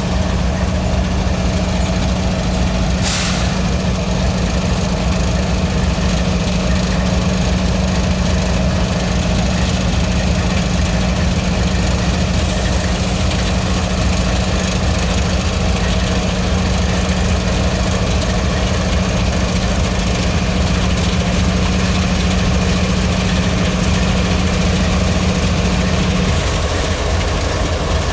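CSX GE ES40DC diesel-electric locomotive passing slowly at close range, its twelve-cylinder GEVO engine running with a steady low drone. There is a brief sharp noise about three seconds in, and the drone drops away near the end as the unit goes by.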